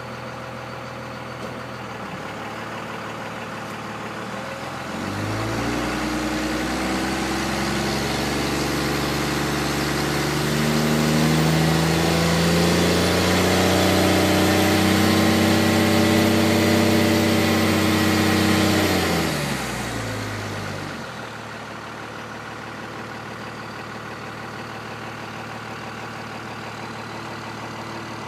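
1998 Dodge Ram's 5.9-litre Cummins inline-six turbodiesel, heard from inside the cab, idling, then revving up about five seconds in and climbing further for several seconds as the turbo builds boost with a rising whistle, before dropping back to a steady idle about twenty seconds in.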